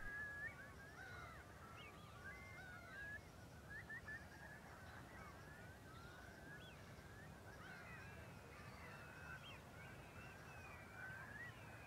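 A flock of wading birds chattering faintly: many short, rising and falling chirping calls overlapping one another without a break.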